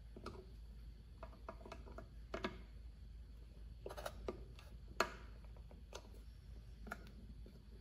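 Faint, scattered light clicks and taps of a hand working a plastic speed-control knob onto its shaft on a mini lathe's control panel, with one sharper click about five seconds in.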